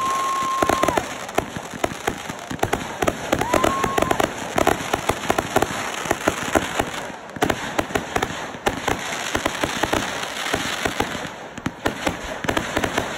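Consumer fireworks going off in a dense barrage of pops, bangs and crackling stars. Two short, steady high whistles cut through in the first four seconds, and the barrage thins briefly near the end.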